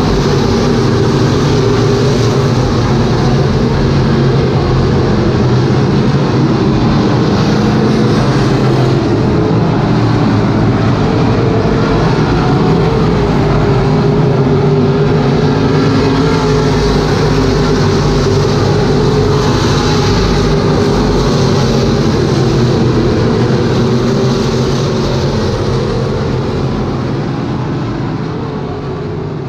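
A field of B-Modified dirt-track race cars' V8 engines running loud and steady as the pack laps the oval. The sound fades somewhat near the end.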